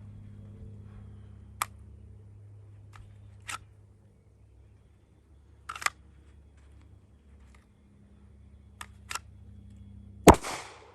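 Several light clicks and taps, then near the end a single loud handgun shot with a short echo.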